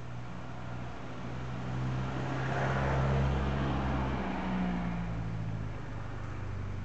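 A road vehicle passing by: a rush of noise that swells to a peak about three seconds in and fades away, over a steady low hum.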